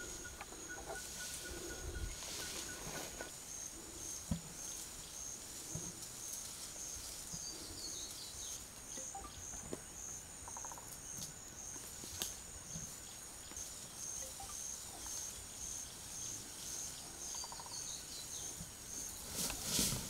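Outdoor ambience dominated by insects chirping in a steady, high, pulsing trill, with scattered faint rustles and knocks. A louder rustling burst comes near the end.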